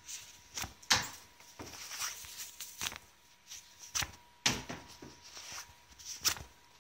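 Scattered light knocks and taps, about half a dozen in all, over a faint steady high hum.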